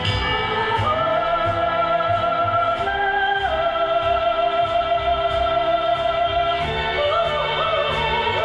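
Background music: a long-held, singing melody line over bass and a steady beat.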